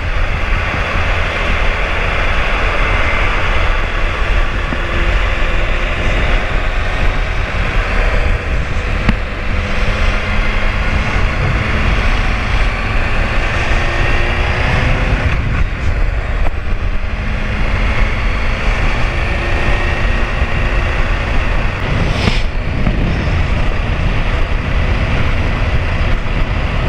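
Wind buffeting the microphone on a moving sport motorcycle, with the bike's engine running underneath, its pitch rising and falling as the rider speeds up and slows.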